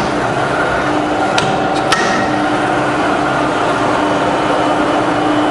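Two rebuilt Bridgeport variable-speed-head milling machines running together at about 800 rpm with their quills power-feeding down: a steady hum with a constant tone, super smooth, the sign of heads freshly fitted with new spindle bearings. Two light clicks come about a second and a half and two seconds in.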